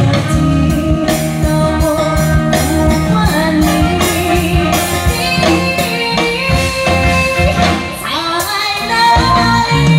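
A woman singing a pop ballad into a handheld microphone over backing music with a steady beat, amplified through the stage sound system.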